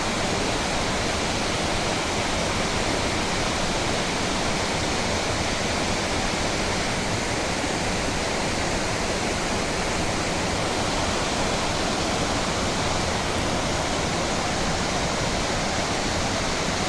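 Fukiware Falls pouring steadily: a continuous, even rush of falling water over the rock ledge.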